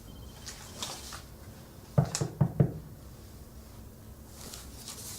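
Four quick knocks or thumps in a row, about two seconds in, with faint rustling before and after.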